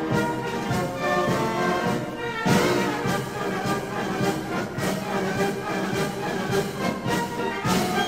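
Instrumental music with brass instruments and a steady beat.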